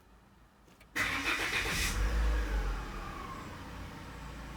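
Peugeot 307 engine starting about a second in: the revs flare, then fall back and settle into a steady idle.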